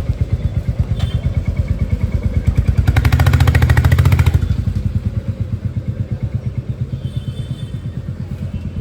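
Royal Enfield motorcycle's single-cylinder engine idling with an even thump, revved briefly about three seconds in and dropping back to idle just over a second later.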